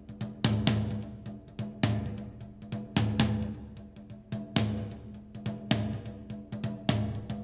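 Instrumental music with heavy drum hits a little over a second apart and a deep bass under each hit, played back through a pair of homemade small speakers with 1.75-inch drivers and passive radiators and recorded live by microphone.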